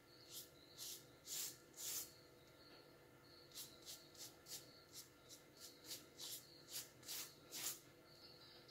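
Silicone pastry brush stroking a glaze onto logs of raw fekkas cookie dough, making faint soft swishes: four slower strokes, then a quicker run of about a dozen.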